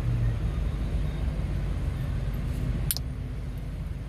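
Steady low rumble with one sharp metallic snap about three seconds in. The snap is pliers cutting the barb off a treble hook that has been pushed through a finger, so the hook can be backed out.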